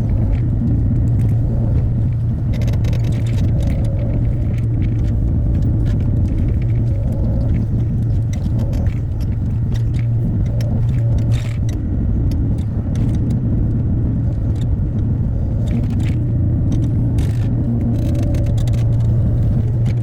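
Hyundai HX60A excavator's diesel engine running steadily with a deep, even hum, with scattered light clicks and knocks from the machine at work.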